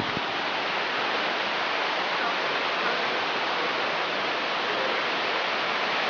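Rushing mountain stream: a steady, even roar of fast-flowing water.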